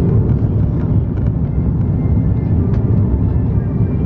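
Cabin noise inside an Airbus A330-300 on final approach with flaps extended: a steady, loud low rumble of airflow and the GE CF6 engines, with faint ticks and rattles from the cabin.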